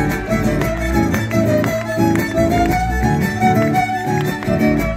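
Live Argentine folk band playing an instrumental introduction: strummed acoustic guitars keep a driving rhythm over a bass line while a violin carries the melody.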